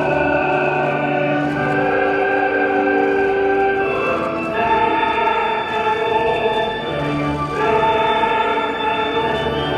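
Music: slow, sustained chords held for a few seconds each, changing about halfway through and again near three-quarters through.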